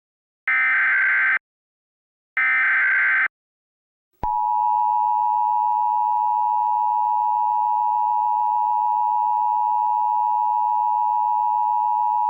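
Emergency Alert System tones: two short bursts of the SAME header's digital data tones, then, after about a second's pause, the steady two-tone EAS attention signal held for about eight seconds.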